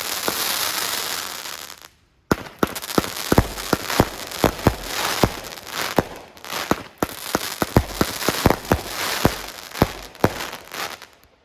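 Firework display going off: a dense hissing crackle, then after a brief break a rapid string of loud bangs over continuous crackling, stopping near the end.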